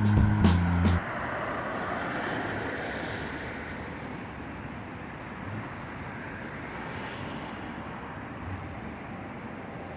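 A short stretch of music cuts off about a second in. After it comes the steady hum of city road traffic, with no single event standing out.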